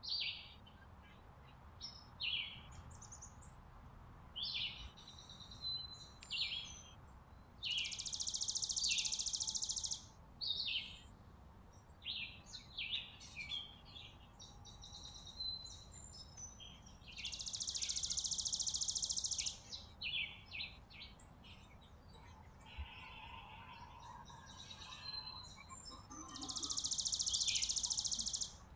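Small songbirds calling with many short high chirps, and three long rapid trills of about two to three seconds each, roughly nine seconds apart, over a faint steady outdoor rumble.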